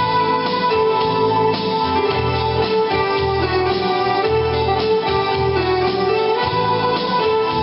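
Instrumental break of a song: a held melody line moving from note to note over sustained chords and a pulsing bass, without vocals.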